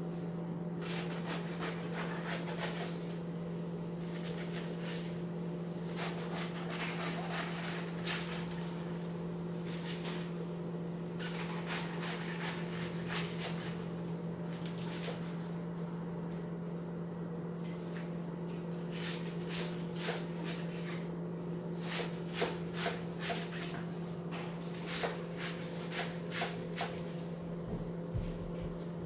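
Large kitchen knife cutting through a head of iceberg lettuce on a thin plastic cutting board: crisp crunching strokes, with sharper taps of the blade on the board coming more often in the last third. A steady low hum runs underneath.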